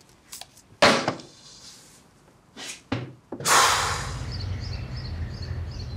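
A sharp thud about a second in, then two softer knocks. After that a rising whoosh settles into a steady low hum with faint high chirps repeating every fraction of a second.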